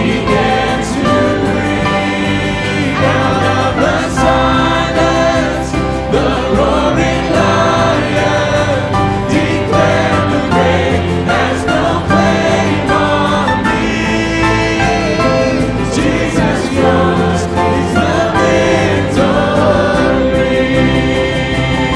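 Choir singing a Christian worship song over full instrumental accompaniment, with sustained chords.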